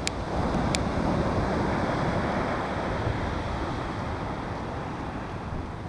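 Sea surf washing onto a beach, with wind buffeting the microphone; the rush swells in the first second or two and then slowly eases. A couple of light clicks near the start.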